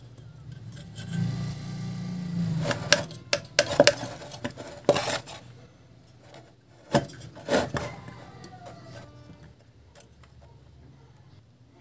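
Hands twisting and pressing hookup wires onto terminals in a metal amplifier chassis: rubbing and scraping early on, then several sharp clicks and taps, the last of them around the middle.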